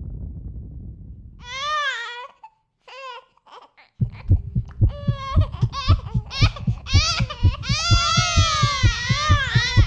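Film soundtrack. A low rumble fades out, then come high wavering tones that bend up and down in pitch. About four seconds in, a fast low thudding pulse of three to four beats a second starts, with high sliding tones over it.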